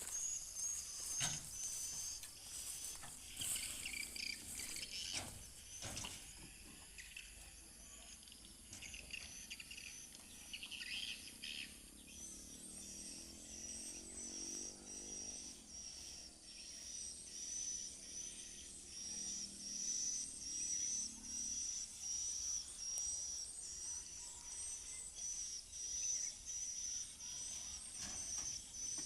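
Outdoor ambience of insects chirping: a high chirp repeats steadily throughout, with a few sharp knocks in the first several seconds. No engine stands out.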